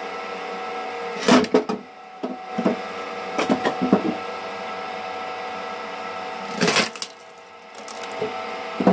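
Homemade rotary log splitter: a motor-driven shaft with an axe-like blade hums steadily while its spinning blade strikes a firewood block, giving several bursts of sharp knocks and wood cracking as the block splits.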